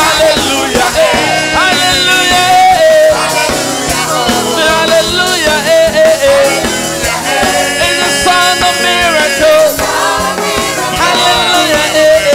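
Gospel praise-and-worship song: a choir singing a held, gliding melody over a band with a steady drum beat.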